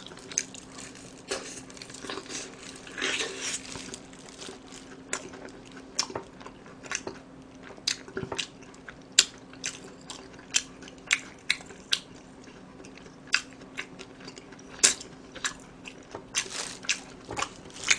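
Close-miked chewing of crispy fried chicken, with irregular sharp crunches and mouth clicks a few times a second.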